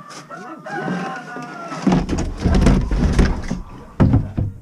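A barn door squeaking as it is moved, then rumbling and rattling, with a couple of heavy knocks near the end.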